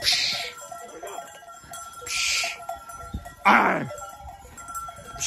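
Goat herd crowding through a pen gate, their bells clinking and ringing throughout. Short hissing calls urge the goats on, and a loud bleat with falling pitch comes about three and a half seconds in.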